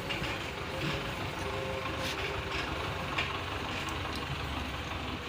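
An engine running steadily with a low rumble, with a few light sharp clicks over it.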